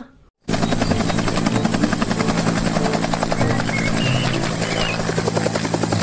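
Bell UH-1 Huey helicopter in flight, its two-bladed main rotor beating in a fast, steady chop over the engine's hum. It starts about half a second in.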